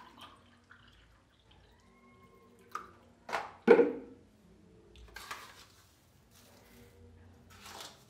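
Water poured from a plastic jug into a mug, then a few short knocks and clatters as the jug is set down and a spoon dips into a plastic canister. The loudest knock comes a little over three and a half seconds in.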